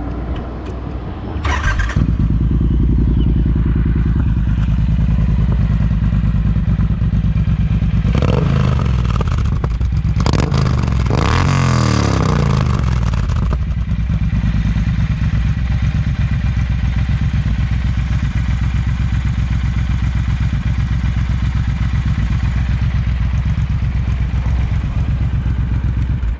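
Triumph Bonneville T120 parallel-twin running through Predator Pro shorty exhausts: it idles, is revved a few times about a third of the way in, settles back to idle and stops near the end. The owner finds these exhausts too loud.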